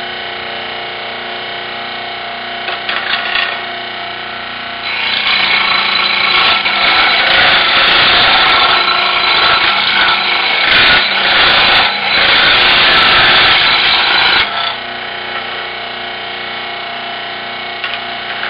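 Scroll saw running with a steady motor hum. From about five seconds in to about fourteen seconds the blade cuts through polyurethane-coated plywood, adding a loud rasping noise, then the saw runs on without cutting.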